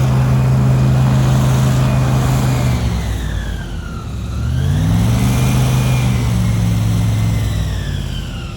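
A large engine running steadily, easing off about three seconds in and revving back up about a second later, with a whine rising and falling in step with it.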